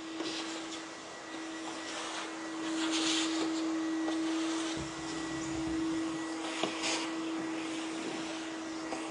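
Vacuum cleaner running steadily with a constant motor whine over a rushing hiss. The suction hiss swells briefly about three and seven seconds in, and a low rumble comes in midway.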